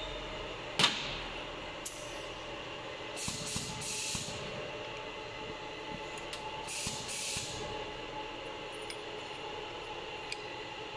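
Steady hum of workshop machinery, with a sharp knock about a second in and a few short hissing bursts.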